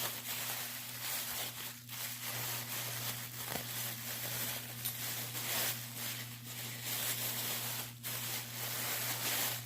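Packing material being torn and crumpled by hand to unwrap a padlock, an uneven rustling and tearing.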